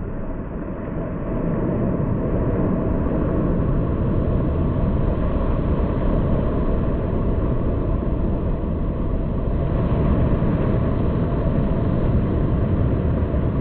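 Surf breaking and white water washing over a camera sitting at the water's edge, heard as a muffled, steady low rumble that grows louder about a second and a half in.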